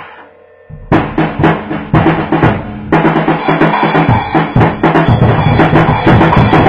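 Drum kit played with light-up drumsticks: one hit at the start rings away, then about a second in a fast, busy stretch of drumming with bass drum and snare starts and keeps going.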